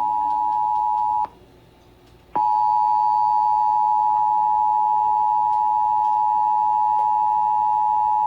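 Emergency Alert System attention tone: a loud steady tone just under 1 kHz, broken off about a second in for about a second, then resuming.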